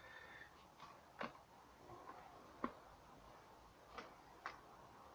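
Near silence broken by a handful of faint plastic clicks and taps as the small plastic radar beacon units of a toy drone are picked up and set down by hand.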